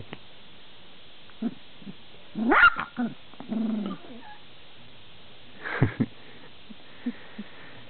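Twenty-day-old golden retriever puppies squeaking and whining: a loud rising squeal about two and a half seconds in, then a lower drawn-out whine, and another short squeal about six seconds in.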